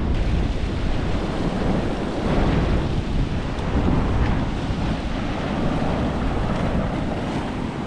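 Ocean surf washing and breaking over a rocky shore, heard as a steady noisy wash, with wind noise on the microphone.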